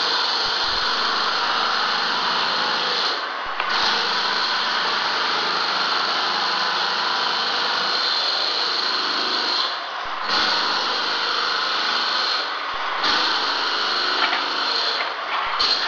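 A power tool running steadily in long stretches, cutting out briefly about three, ten and thirteen seconds in before starting again.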